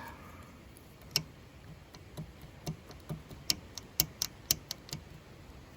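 About a dozen sharp, irregular clicks and taps from hand work on a disassembled ATC 200X engine, bunched most closely near the end.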